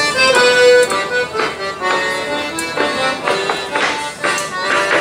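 Accordion playing a lively traditional folk dance tune, with the sharp taps of clog-dance steps on the wooden stage falling in with the beat.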